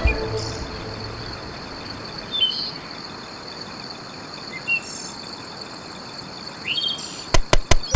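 Woodland birds giving a few short chirps and down-slurred calls. Near the end comes a quick series of about five sharp knocks, like tool strikes on wood.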